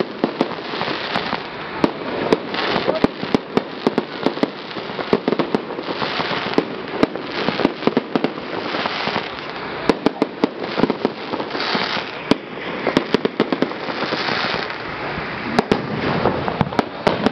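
Fireworks display: aerial shells bursting in a rapid, continuous barrage of sharp pops and bangs over a steady crackling wash.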